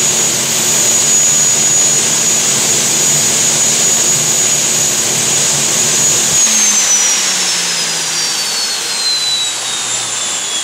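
Squirt 2 jet boat's gas turbine running with a steady roar and a high whine. About six seconds in the turbine spools down: the whine falls steadily in pitch as the engine winds down.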